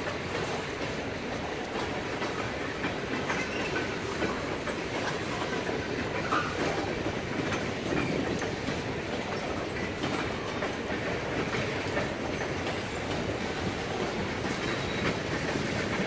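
Freight cars (covered steel-coil cars, then boxcars) rolling steadily past, their wheels rumbling and clicking over the rail joints.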